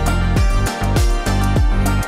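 Background music with a steady beat: a deep kick drum that drops in pitch, about two strokes a second, under sustained melodic notes.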